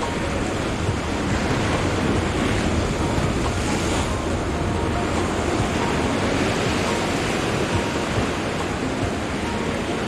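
Ocean surf breaking and washing over the rocks close by, a steady rushing noise, with wind buffeting the microphone.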